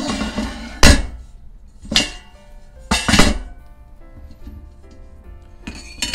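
Metal parts of an aluminium-extrusion printer frame knocking and clanking as they are pushed and tapped square, three or four sharp knocks about a second apart, the last a quick double. Background music plays underneath.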